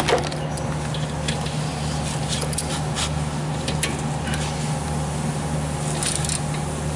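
A socket ratchet clicking in short runs as it turns a brake caliper bolt, over a steady low hum.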